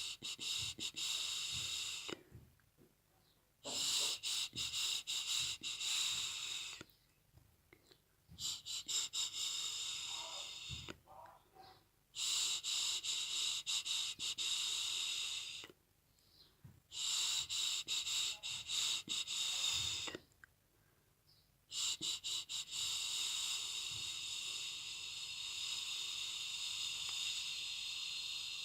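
A person softly shushing in long "shh" sounds, each held for several seconds with short pauses between, to lull a baby bird to sleep.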